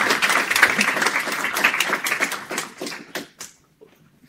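Audience applauding. The clapping thins out after about three seconds and ends in a few last separate claps.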